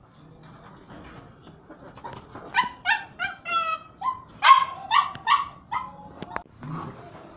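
German shepherd puppy yelping: a quick run of short, high calls that each drop in pitch, starting about two and a half seconds in, with a few more near the end.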